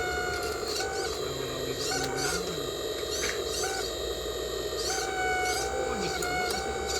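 Small electric motors of radio-controlled model construction machines whining, cutting in and out and stepping in pitch as the controls are worked, with a few light clicks.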